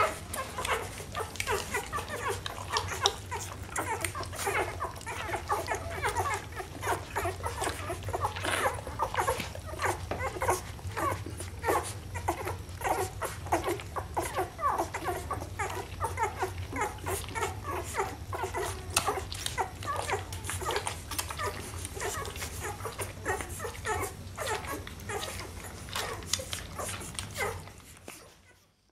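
A litter of newborn Rhodesian Ridgeback puppies nursing, making a constant chorus of short, high squeaks and whines that overlap one another. It fades out near the end.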